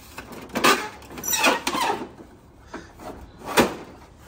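Hard plastic cargo bay doors of a vintage GI Joe Defiant space shuttle toy being slid and pried open by hand: plastic scraping and rubbing through the first two seconds, then one sharp plastic click near the end.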